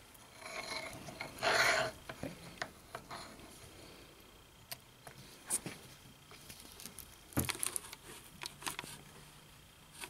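Light clicks, taps and a short scrape of steel knife parts being handled and pressed under a hand press, seating a ceramic detent ball in a frame-lock knife's lock bar. The scrape comes about a second and a half in, and a cluster of clicks follows near the end.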